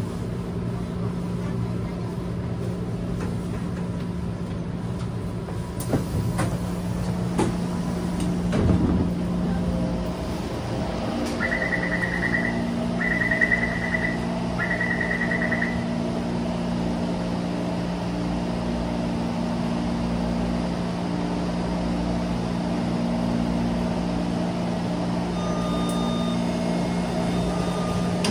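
Taipei Metro C321 train standing at the platform, its equipment humming steadily, with a few knocks and footsteps as passengers step off. About twelve seconds in, a door-closing warning sounds: three pulsed beeps of about a second each.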